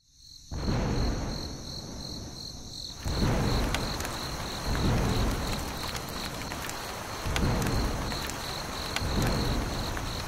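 Thunderstorm sound effect: steady rain with several low rolls of thunder, and a high, even chirping of crickets throughout. The rain comes in about half a second in and grows heavier about three seconds in.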